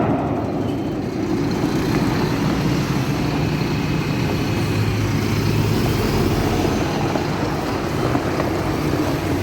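Concrete mixer truck's diesel engine running steadily, a low, even rumble.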